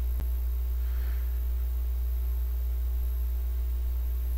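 Room tone between remarks: a steady deep hum with faint hiss, and one faint click just after the start.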